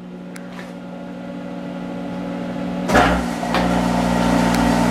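Monarch 10EE lathe with its vacuum-tube Module drive humming steadily; about three seconds in, the spindle is engaged in forward and the DC drive motor and headstock start running at a low speed of a few hundred RPM, adding a steady whir with a low rumble.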